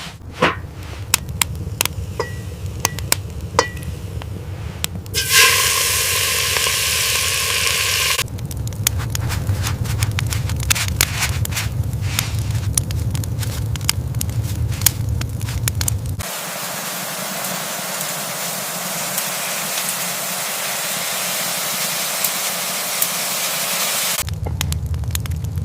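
Crackling and popping over a low rumble, broken by abrupt cuts to stretches of steady hissing. One hiss, about five seconds in, carries a faint whistling tone, and a longer one runs from about the middle to near the end.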